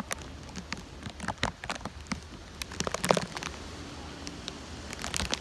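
Rain falling, with irregular sharp drops tapping close to the microphone over a steady hiss; the taps come thick about three seconds in and thin out after.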